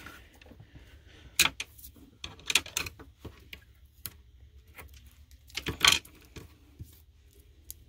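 Scattered light clicks, taps and rustles of paper and craft supplies handled on a tabletop while a glued paper piece is pressed down, with the loudest cluster about six seconds in.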